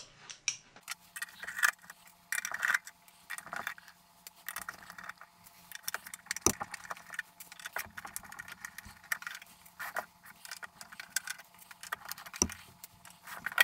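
Sheet-metal case of a ZD-915 desoldering station being handled and its cover worked off: a string of light metallic clicks and rattles with a few sharper knocks, over a faint steady hum.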